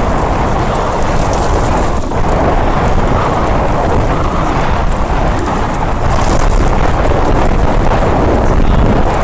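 Wind buffeting the microphone of a camera mounted on a moving mountain bike: a loud, steady rushing noise.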